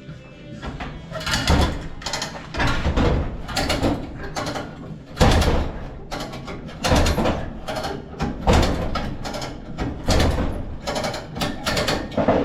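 Hand lever winch being pumped to haul a heavy load. It gives repeated harsh ratcheting, scraping strokes roughly once a second.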